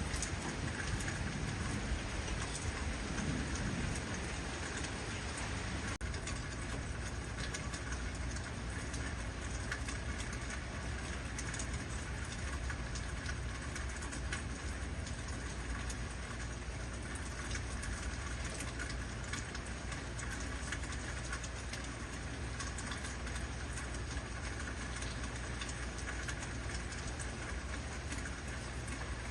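Heavy rain falling steadily, an even wash of drops, with a low rumble easing off in the first few seconds.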